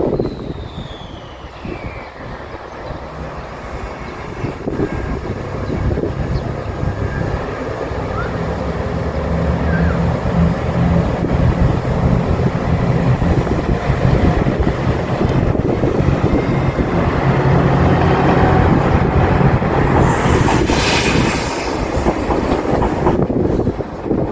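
A diesel limited express train drawing closer and passing, its engines humming steadily and growing louder alongside the rumble and clatter of the wheels. Near the end a high hissing squeal rises briefly over it.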